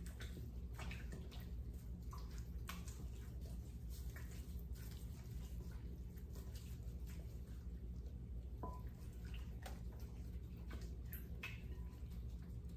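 Raw chicken being turned by a gloved hand in apple cider vinegar and salt in a glass bowl: faint wet squishes, small splashes and light clicks, over a steady low hum.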